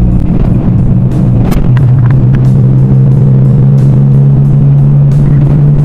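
Steady low drone of a car being driven, heard from inside the cabin, with music playing over it.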